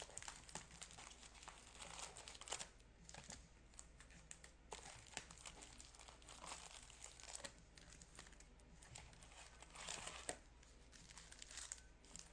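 Wrapped 2024 Topps Series 2 trading-card packs crinkling and rustling as they are handled and pulled out of their box, in faint, uneven crackles.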